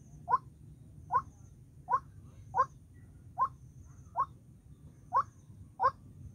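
White-breasted waterhen calling, a short rising note repeated over and over, about one every three-quarters of a second.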